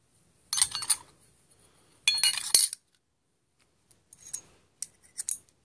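Steel front-differential parts of a Toyota ST205 transmission (side gear, shims, cone) clinking and rattling against each other as they are handled. Two dense bursts of metal-on-metal clatter come in the first three seconds, then a few lighter clinks.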